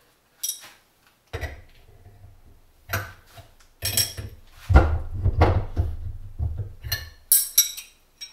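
Steel hand tools and engine parts clinking and knocking against a Harley-Davidson Ironhead Sportster flywheel assembly as the new thrust washer is fitted: an irregular run of metallic clinks and dull knocks, busiest in the middle, with a couple of sharp clanks near the end.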